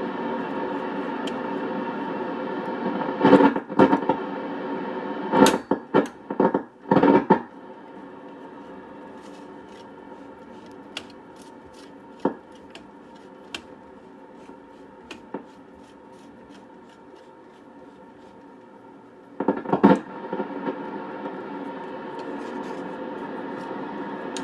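Patterson 16C valve communications receiver's speaker output: a steady buzzing tone with static, broken by loud crackling bursts a few seconds in and again near 20 s. Between them, about seven seconds in, the tone drops away to a quieter hiss.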